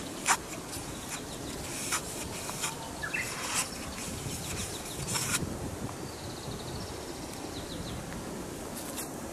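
Footsteps on a gravel path covered with wet fallen leaves, over steady outdoor wind noise. A short rising bird chirp comes about three seconds in, and a faint, rapid, high trill is heard in the second half.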